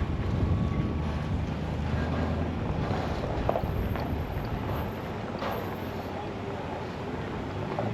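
Diesel locomotive engine droning low and steadily at idle, louder in the first couple of seconds and again near the end, with wind buffeting the microphone.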